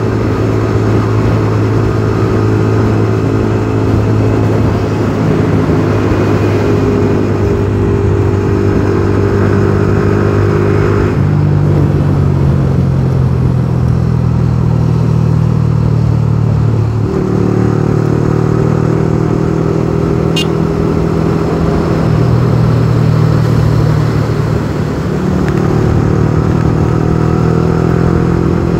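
Yamaha R15 V3's 155 cc single-cylinder engine running steadily at highway cruising speed. Its note changes twice, about 11 and 17 seconds in. A brief high tick comes about 20 seconds in.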